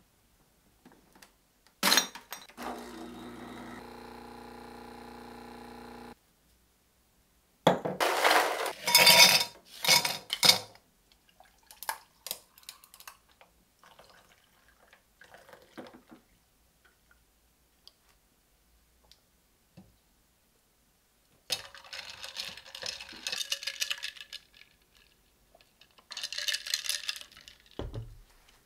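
Dishes and cutlery clinking and clattering in several short spells, loudest about eight to ten seconds in. About two seconds in, a sharp knock is followed by a steady hum of about four seconds that cuts off suddenly.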